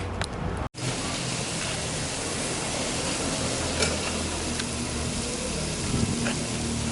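Food sizzling steadily in a pot on a small portable stove (a Haitian recho), a continuous even hiss that starts after a brief dropout about a second in.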